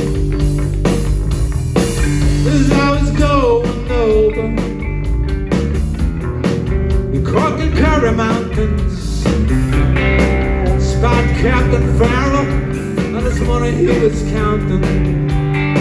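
A live rock trio of electric guitar, electric bass and drum kit playing a song, with the guitarist singing lead vocals over it.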